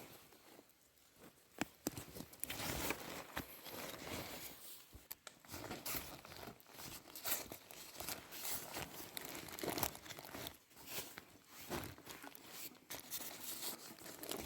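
Plastic bags and food packaging rustling and crinkling in irregular bursts with small clicks, as food is handled and unpacked.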